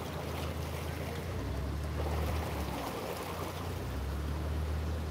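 Steady low hum of a boat engine, with water rushing and splashing.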